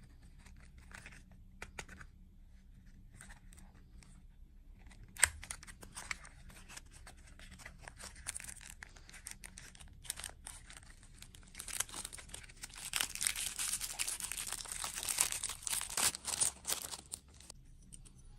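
A wrapper being crinkled and torn open: crackly rustling that grows denser in the last few seconds, with one sharp snap about five seconds in.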